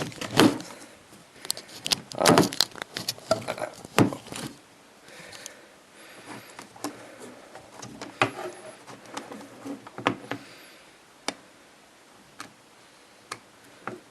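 Handling of a mobile phone and its charger: a series of sharp plastic clicks and knocks, some eight or so spread irregularly, with soft rustling between.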